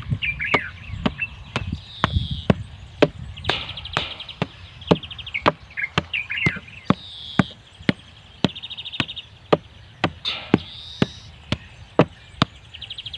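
Hammer knocking on the stones and earth packed around the base of a fence post, sharp knocks about two a second, tamping the fill in. Birds chirp and trill in the background.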